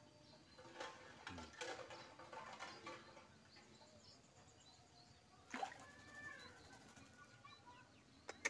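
Quiet pondside ambience with faint bird chirps. Scattered soft clicks and rustles come from hands baiting a fishing hook with a worm, with a sharper click a little past halfway and another near the end.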